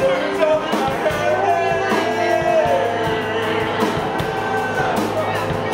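Live band playing rock music: frequent drum-kit hits under held, gliding melodic lines.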